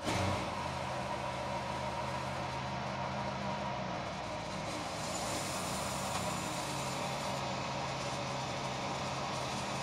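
Homemade bandsaw mill running steadily, its engine and blade sawing through a large spruce log.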